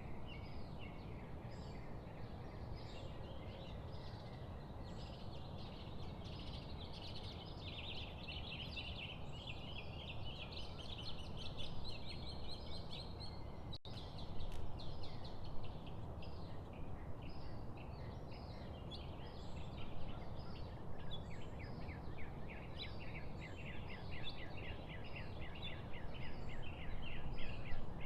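Many small birds chirping and twittering in quick runs of short, repeated high notes, over a steady low rumble.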